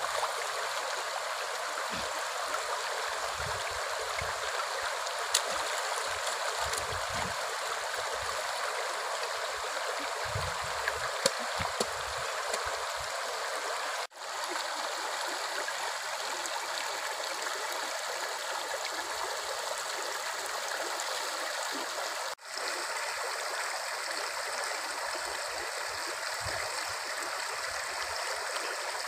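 Shallow rocky stream running steadily, with a few low bumps in the first half.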